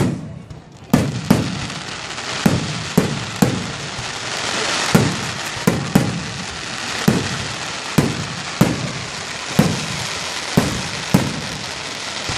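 Aerial firework shells bursting in quick succession: about twenty sharp bangs, one to two a second, beginning about a second in, over a continuous hiss that swells around the middle.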